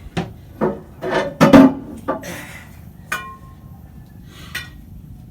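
Irregular metallic clanks and knocks from a steel propeller shaft being worked out of a yacht's stern. The loudest comes about one and a half seconds in, and one about three seconds in rings on briefly like struck metal.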